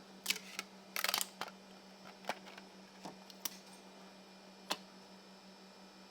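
Scattered sharp clicks and clacks of hard plastic parts being handled, one a quick rattling cluster about a second in, over a steady low hum.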